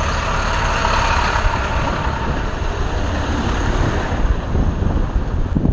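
City bus engine running close alongside, a steady low rumble over the general noise of street traffic.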